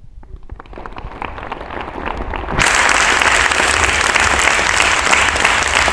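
Theatre audience applauding: scattered claps build into dense applause that turns suddenly louder about two and a half seconds in and stays full.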